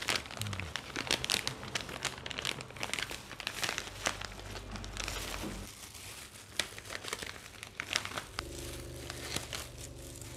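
Plastic zip-lock cookie pouch and disposable plastic gloves crinkling and rustling as crisp butter cookies are dropped into the bag one by one, in a stream of irregular sharp crackles.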